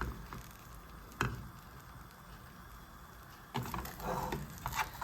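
Cooking utensil knocking and scraping in a frying pan of scrambled eggs: a single sharp knock about a second in, then a short spell of clattering near the end.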